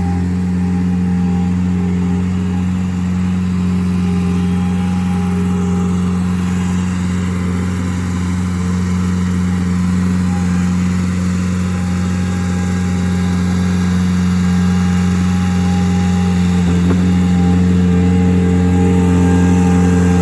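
Skid-steer loader engine running steadily, getting slightly louder near the end.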